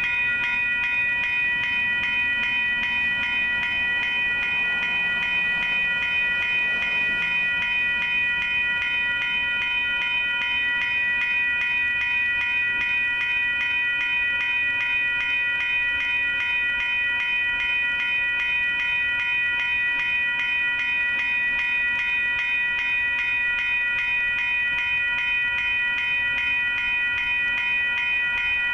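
Railroad grade-crossing warning bell ringing steadily, a fast, even run of metallic strokes that keeps on without a break.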